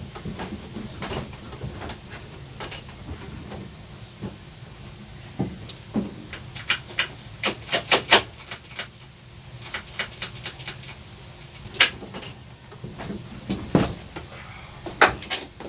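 Irregular clicks and clunks from handling the controls of a Yamaha YFZ450 quad while checking that it is in neutral, with a quick run of clicks midway and a few louder knocks near the end. The engine is not running.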